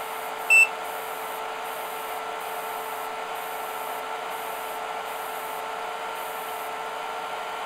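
Cooling fans running steadily under a high hiss from the IBM DPS-2000BB server power supply, which swells and fades about once a second until near the end. The hiss goes with the supply's fluctuating output voltage in the 60–70 A load range. A short electronic beep from a charger comes about half a second in.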